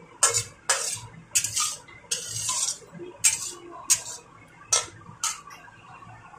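Metal spatula scraping and clanking against a stainless-steel wok while stir-frying eggplant and vegetables: about ten sharp strokes at an irregular pace, one of them a longer scrape.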